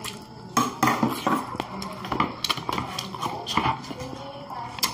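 Roast chicken being pulled apart by hand and chewed, with a string of sharp, wet clicks and smacks.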